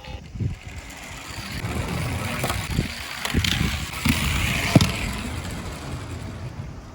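Tomica die-cast toy cars rolling down a slope: a rolling rumble that builds and then fades near the end, with several sharp clacks along the way.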